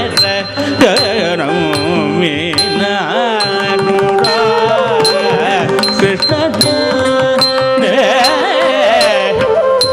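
Live Carnatic music for a Bharatanatyam varnam: a wavering, ornamented melody over sharp, repeated percussion strokes.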